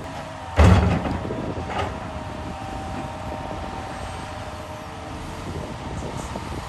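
Heavy earthmoving machinery running steadily, with one loud heavy thud about half a second in and a lighter knock about a second later.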